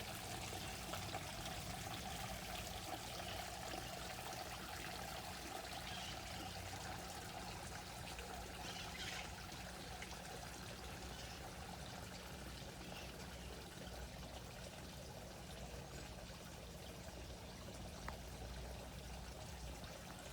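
Water pouring and trickling steadily into a carp pond, a continuous splashing flow.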